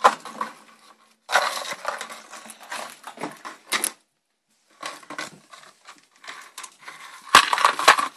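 Pet rats scrabbling at and tearing a cardboard toilet paper tube stuffed with treats in a wire cage: irregular crinkling, crunching and clattering with two short pauses. The loudest stretch comes about seven seconds in, with a couple of dull thumps.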